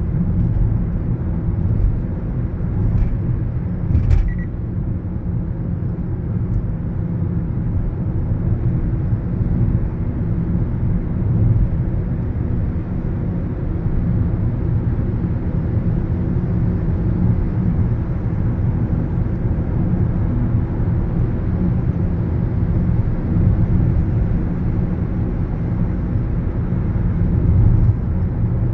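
Steady low rumble of road and engine noise inside a moving car's cabin, with a short click about four seconds in.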